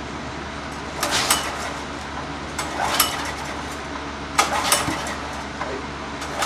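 Several short metallic clinks and rattles, about four clusters, over a steady low hum, as of tools and metal parts being handled.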